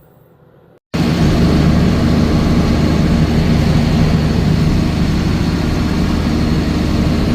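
Heavy farm-machinery engine running steadily, with a low hum under a constant mechanical din. It cuts in suddenly about a second in after a near-silent moment.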